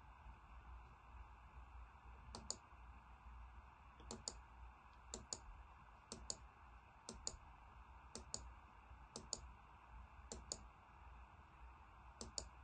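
Computer mouse button clicked about nine times, roughly once a second, each a quick double tick of press and release, over a faint low hum.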